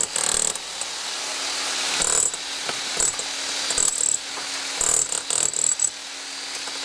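Electric rotary hammer chiselling through a mortared river-stone wall with hollow clay brick behind it, running in continuous spurts that surge louder several times as the bit bites.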